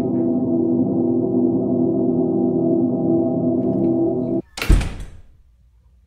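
Sustained drone of several steady tones that cuts off abruptly about four and a half seconds in, followed at once by a single loud slam that rings briefly and dies away.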